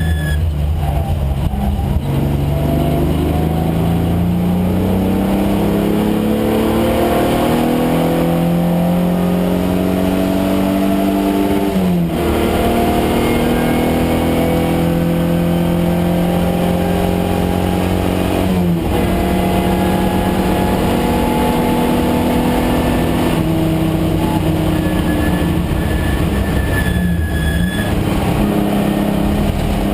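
Datsun 510 wagon's swapped-in Nissan VG30 V6, carbureted, pulling hard under load: the revs climb slowly and drop sharply at gearchanges about twelve and nineteen seconds in, then hold fairly steady with a couple of brief lifts near the end.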